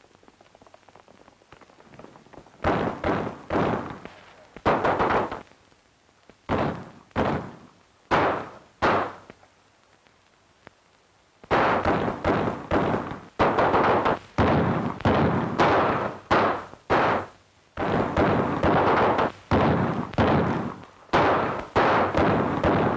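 A series of sharp bangs and thuds from an old western film's soundtrack, each with a short echoing tail. They come a second or two apart at first, then rapid and nearly unbroken from about halfway.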